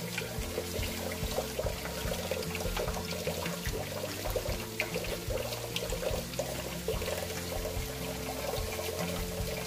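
Kitchen tap running a thin, steady stream of water into a stainless-steel sink, with background music playing over it.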